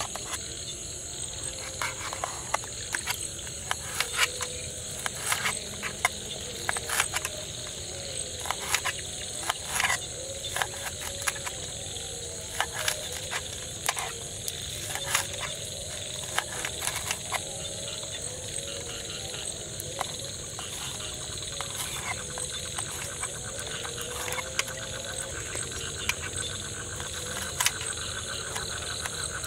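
Knife cutting vegetables held in the hand over a pot: irregular crisp cuts and clicks. Behind it, a steady high drone of night insects with frogs croaking.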